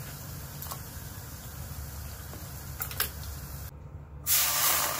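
A faint steady hum, then, after a brief drop-out near the end, water poured from a measuring cup into a pan, splashing in as a loud, even hiss.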